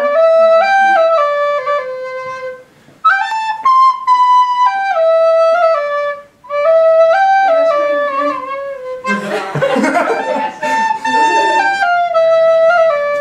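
Wooden recorder playing a stepwise melody in three phrases, with two short breaks between them; a burst of noise sounds over the tune about nine to ten seconds in.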